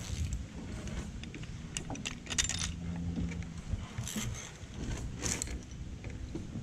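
Metal zipline harness hardware, carabiners and clips, jingling and clinking in several short bursts.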